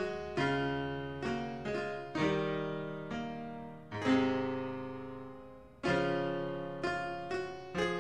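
Piano playing slow chords, each struck and left to fade before the next, with one long held chord in the middle.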